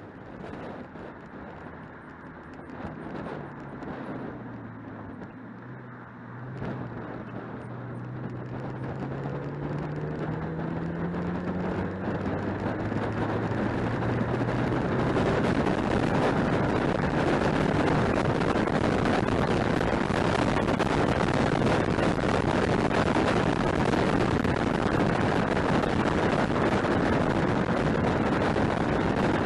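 Car on the move, heard from a camera mounted near a front wheel: the engine note rises as it accelerates through the first dozen seconds, while tyre and wind rush builds and then holds steady at speed.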